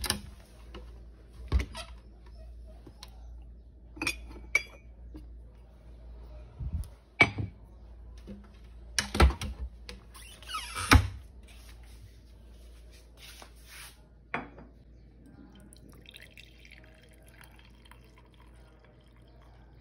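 Kitchen cupboard doors and ceramic mugs being handled, a string of separate knocks and clacks with a short rattle about ten seconds in. Near the end, coffee pours faintly from a glass carafe into a mug.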